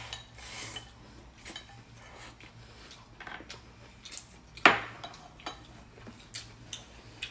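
Chopsticks clicking against ceramic bowls and dishes: a scatter of light clinks, with one louder clink a little past the middle.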